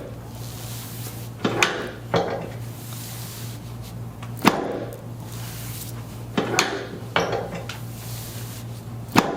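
Chiropractic adjustment of the back and tailbone: six sharp cracks and knocks, spaced unevenly, each ringing briefly.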